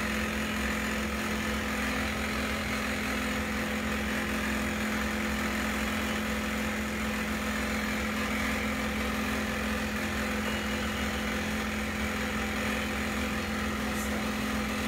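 A steady machine hum at one constant low pitch, unchanging throughout, with a faint tick near the end.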